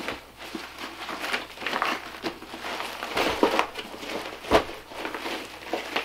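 Folded 1000D nylon tactical vest being unfolded and handled, its stiff fabric rustling and scraping in irregular strokes, with a single thump about four and a half seconds in.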